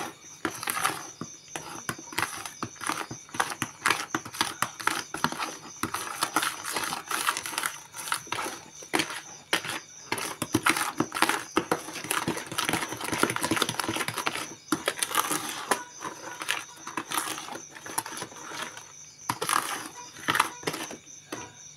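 Metal spoon stirring a thick chocolate batter in a plastic bucket: rapid, irregular clicks and scrapes of the spoon against the bucket's sides and bottom. The flour, cocoa and sugar are being mixed until they dissolve.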